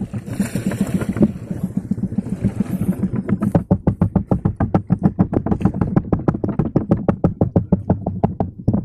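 Small boat engine running, with wind and water hiss over it for the first three seconds; from about three seconds in it settles into an even, rapid putt-putt of about eight beats a second.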